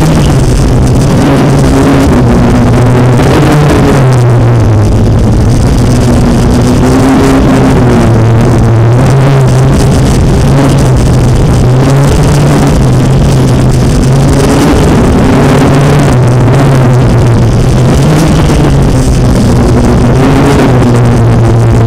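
FPV racing drone's motors and propellers running, a loud continuous buzz whose pitch rises and falls every few seconds as the throttle changes.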